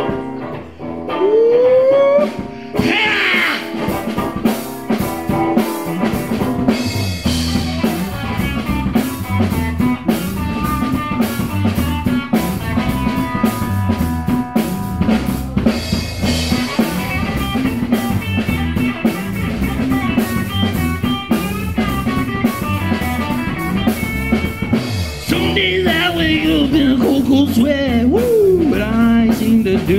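Live band playing an instrumental passage on drum kit, electric bass and electric guitar. It starts quietly with a short rising guitar glide, and the full band comes in loud about two and a half seconds in.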